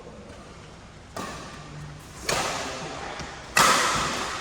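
Badminton rackets striking the shuttlecock in a rally: three sharp hits about a second apart, the last two the loudest, each echoing in a large hall.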